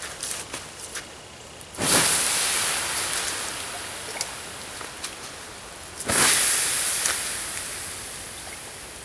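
A campfire being doused with water, twice. Each pour sets off a loud hissing rush from the hot coals that fades slowly over several seconds.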